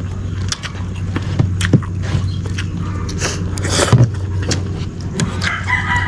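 Sounds of a meal being eaten: scattered clicks and knocks of spoon and dish and two short noisy bursts, over a steady low hum. A rooster starts crowing near the end.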